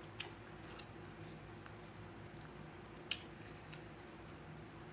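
Quiet eating sounds: a metal fork clicking sharply twice, once near the start and once about three seconds in, with faint chewing between.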